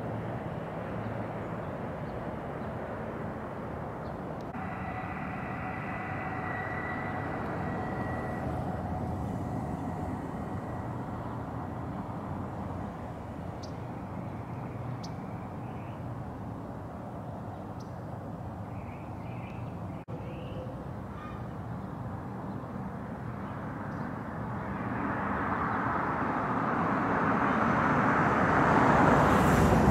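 Steady outdoor hum of distant traffic, growing louder over the last several seconds as a vehicle approaches.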